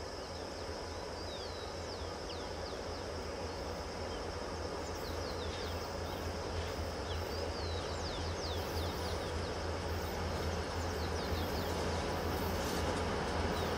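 Diesel freight locomotive's engine running as the train approaches, a low steady rumble that grows gradually louder. Birds chirp with short, quick calls throughout.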